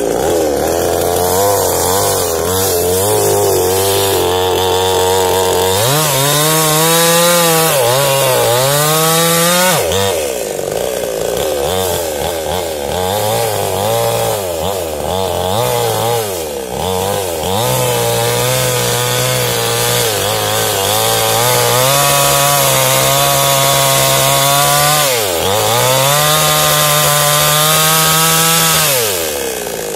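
New Paxton two-stroke chainsaw cutting into a tree trunk at full throttle. The engine pitch sags and recovers again and again as the chain bites into the wood, then falls near the end as the throttle is let off.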